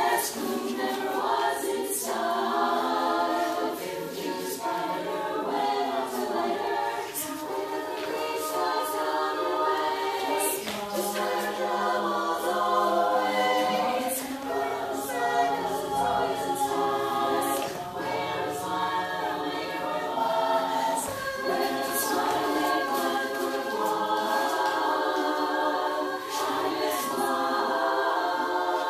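Choral music: a choir of voices singing a tune, playing without a break, with scattered sharp clicks over it.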